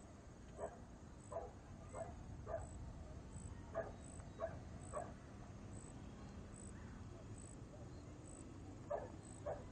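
A dog barking in short single barks: about seven in quick succession over the first five seconds, then a pause of several seconds before two more near the end. Low, steady background noise runs underneath.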